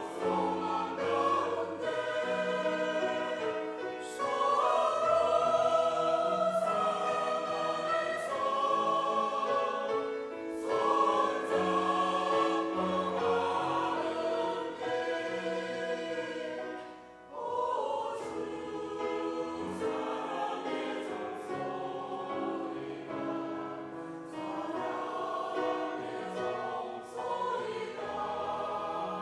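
Church choir singing a sacred anthem in parts, with long held notes over low sustained notes and a short break between phrases about two-thirds of the way through.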